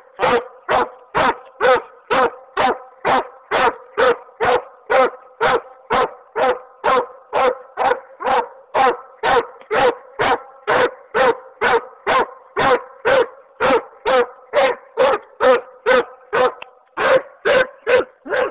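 Walker coonhound giving a steady, rapid chop bark at the tree, about two and a half barks a second: a hound that has treed its quarry and is barking up at it.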